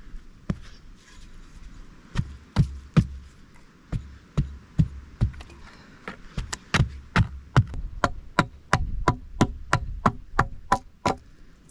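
Repeated sharp knocks of a hatchet striking wood, at first about two a second, then faster and more even near the end at about three a second with a slight ring.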